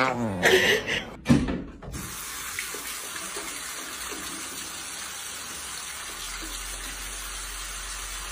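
For about the first two seconds a dog asleep on a couch makes short vocal sounds. Then a bidet tap runs water into the bowl, a steady rush that does not change.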